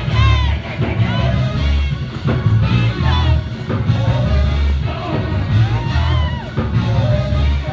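Live church worship music: a band with a bass line that pulses in short held notes, and voices singing over it.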